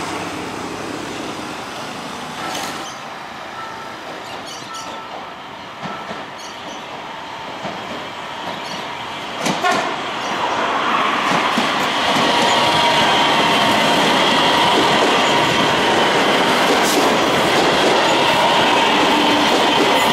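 Electric multiple-unit commuter train approaching and passing close by. It grows louder to a steady rush of wheels and motors with a sustained whine from about ten to twelve seconds in, with a few sharp clacks just before.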